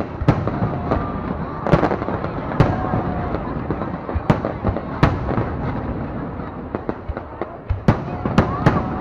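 Aerial fireworks display: shells bursting with sharp bangs, irregularly about a second apart and bunched together near the end, over a dense continuous crackling.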